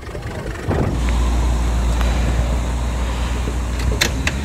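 Four-wheel-drive engine running steadily under load, coming in about a second in. Two sharp clicks near the end.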